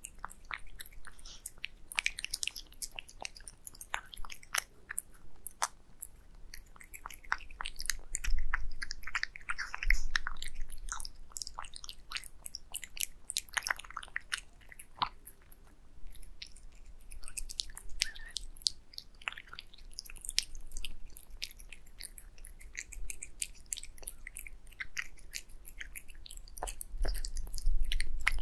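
A cat eating wet cat food with egg yolk from a glass plate, close up: steady wet chewing, licking and lip-smacking, heard as many quick irregular clicks. A few dull low thumps stand out, the loudest sounds, about eight and ten seconds in and near the end.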